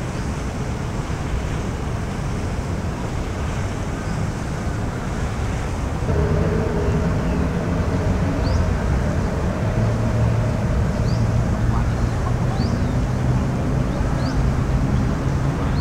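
Steady outdoor rumble of city traffic with wind noise on the microphone. A steady low hum comes in about six seconds in, and a few short high chirps sound later.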